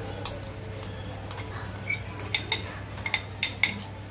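A glass bowl clinking against an aluminium pressure cooker as sprouted moth beans are tipped into it: one sharp clink about a third of a second in, then a cluster of clinks in the second half.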